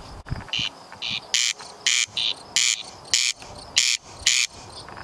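Corn crake giving its rasping "crex crex" call: dry, harsh double rasps repeated about twice a second.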